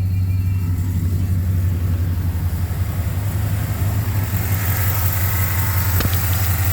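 Chevrolet Silverado pickup fitted with aftermarket headers, its exhaust idling steadily with a deep, even low rumble.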